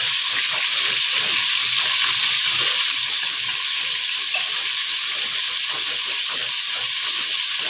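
Whole frogs frying in oil in a pan: a steady sizzle with many small crackles.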